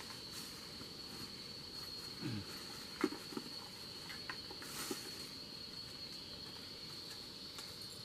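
Steady high insect call, a single unbroken tone, over the forest. A few light clicks and rustles about three and five seconds in, from a bag being handled among dry leaves.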